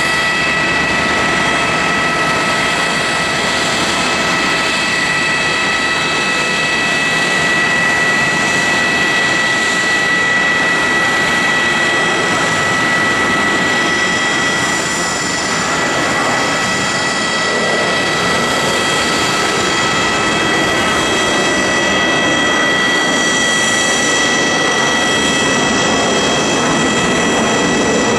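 Airbus A320 jet engines at takeoff power: a loud, steady rush with a high whine running through it. There is a brief dip in loudness about halfway through, and a deeper rumble comes in over the second half.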